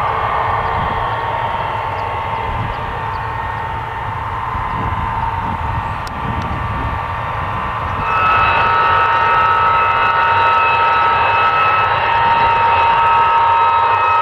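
Ilyushin Il-62's four rear-mounted jet engines running with a steady whine, then about eight seconds in stepping up sharply louder with a higher whine added as they are run up to high power on the runway.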